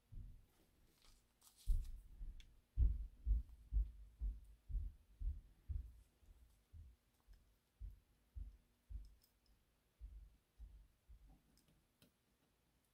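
Handling noise from putting small metal gear wheels back into a model locomotive's truck gear frame: soft low thumps, irregular at about two or three a second, with a few faint clicks.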